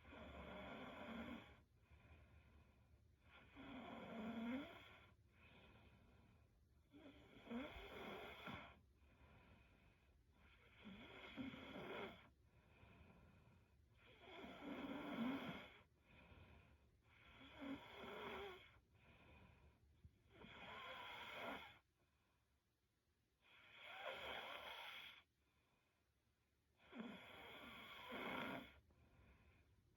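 A girl snoring softly in her sleep, a snore on each breath about every three and a half seconds, nine in all.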